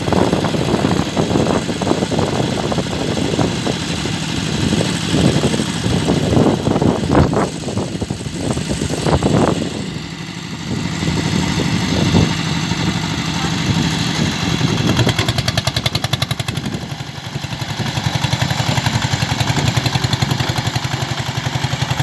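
Single-cylinder diesel engine of a two-wheel walking tractor running with a fast, chugging beat, uneven while it works to free the machine from deep paddy mud, then settling into a steadier, even beat in the second half.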